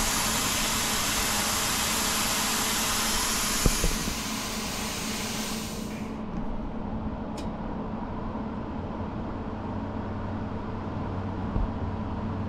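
Compressed air hissing steadily through a CNC plasma cutter's torch with no arc struck, the machine pushing air but not cutting; the hiss dies away and stops about six seconds in. A steady machine hum runs underneath, with a sharp click just before four seconds in.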